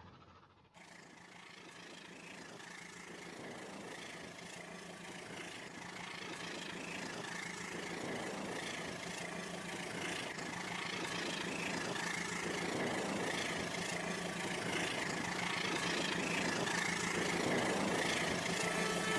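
A small motor running with a steady hum, growing gradually louder.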